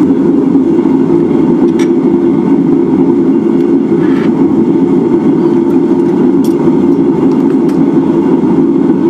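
Steady, loud drone of running forge-shop equipment, with a few light metallic clinks as a glowing railroad spike is set into a steel bench vise.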